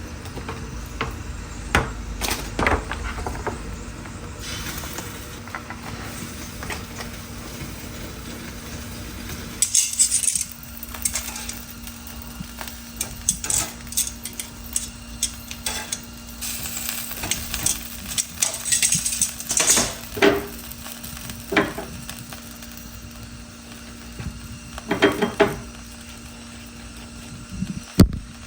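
Cutlery clinking and tapping against dishes in scattered, irregular clicks, over a steady faint hum.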